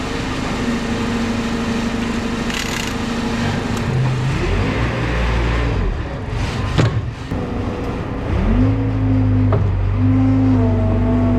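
Vehicle engine running steadily; its pitch shifts about four seconds in, then rises and settles again about eight and a half seconds in, with a few sharp knocks along the way.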